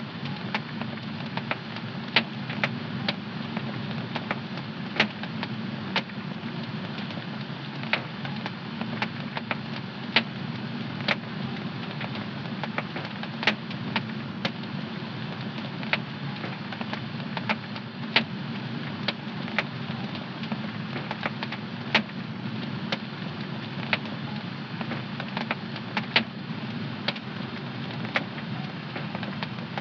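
Wood fire in a home fireplace crackling: sharp, irregular pops, one to three a second, over a steady low rush of the burning fire.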